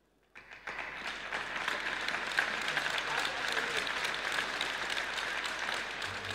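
Audience applauding, a dense patter of many hands clapping that starts suddenly about half a second in and holds steady.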